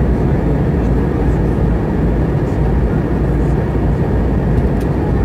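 Steady cabin noise inside an Airbus A320 in flight: engine and rushing air blend into a constant low rumble that does not change.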